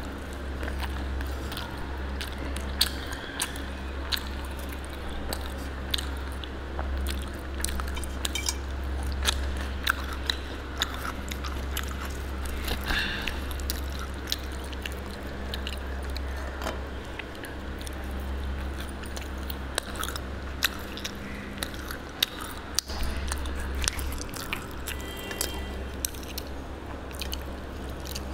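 Close-miked eating: biting and chewing puri with mutton curry, full of irregular wet mouth clicks and smacks, over a steady low hum.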